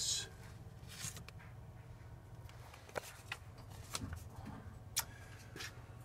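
Quiet basement room tone with a steady low hum, broken by a few small clicks and rustles, the sharpest about three and five seconds in.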